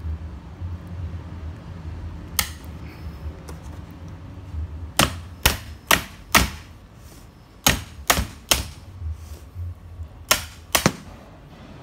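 A small hammer tapping on locking pliers clamped onto a gear of a DTI205 core drilling machine: about ten sharp metallic taps in short groups, one alone, then four, three and two. The taps drive the gear off so a screw behind it can be reached.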